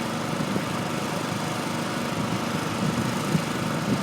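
Engine of construction machinery running steadily.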